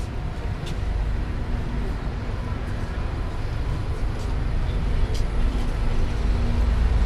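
City street traffic: a steady low rumble of passing vehicles that grows louder near the end, with a faint engine hum and a few faint clicks.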